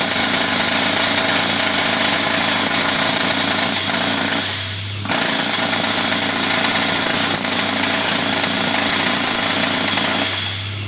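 Pneumatic jackhammer hammering on a steel pin in an excavator's linkage, trying to drive the pin out. It runs in two long bursts, with a brief stop about four and a half seconds in, and stops near the end.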